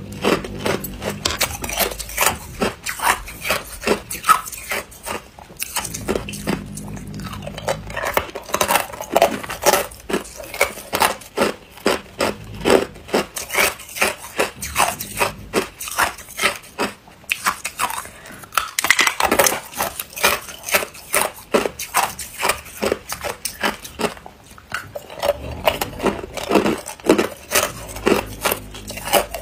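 Hard clear ice cubes being bitten and chewed close to a lapel microphone: rapid sharp crunches and cracks, several a second, with a few short pauses between bites.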